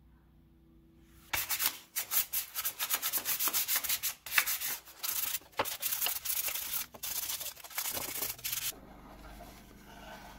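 P320 silicon carbide sandpaper rubbed by hand over a small piece of wood in quick back-and-forth strokes, starting about a second in and stopping near the end.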